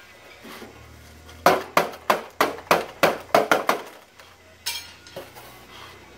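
A drumstick striking a styrofoam cooler: a quick run of about ten sharp hits over two seconds, then a single sharper hit about a second later.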